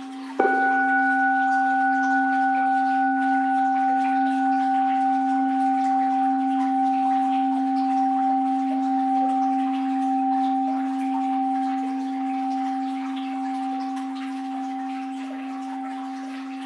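An orin (Japanese Buddhist bowl bell) struck once about half a second in, then ringing on with a low hum and two clear higher tones that waver slightly and slowly fade.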